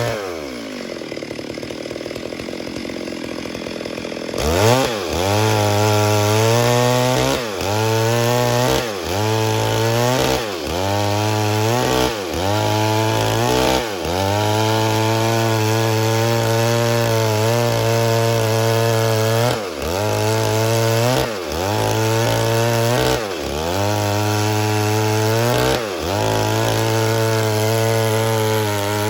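Stihl MS 382 two-stroke chainsaw easing off to a low idle, then from about four seconds in running at full throttle. Its pitch dips and recovers about every one to two seconds, as if biting into wood and pulling back.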